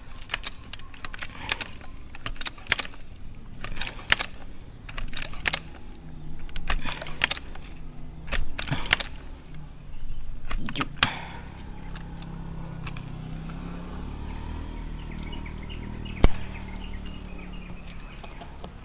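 Hand-pumped uklik air rifle being handled and pumped: irregular clacking strokes about once a second for the first eleven seconds or so. Then a steady low hum, with one sharp click about sixteen seconds in.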